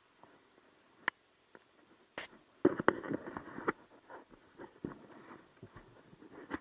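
Gloved hands handling and adjusting an action camera on its mount. There are a couple of sharp clicks, then a burst of knocks and scrapes lasting about a second, followed by lighter ticks and rubbing.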